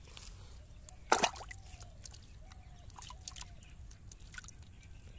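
Hands squelching and sloshing in a shallow hole of muddy water while digging for eels, with one loud wet slap about a second in and a few softer wet clicks after it. Three faint short calls are heard in the background.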